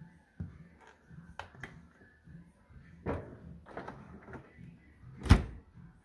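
Miele dishwasher door shut with one loud thud about five seconds in, after a few lighter clicks and knocks from the detergent compartment lid being closed over the tablet and the door being handled.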